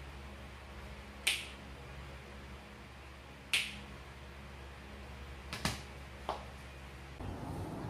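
Fingers snapping: two sharp snaps about two seconds apart, then a quick double snap and one fainter snap. Near the end a steadier background noise comes in.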